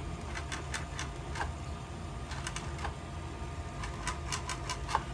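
Light clicks and taps of hard plastic parts of a 3D-printed E-11 blaster prop being handled and worked, in small scattered clusters over a steady low hum.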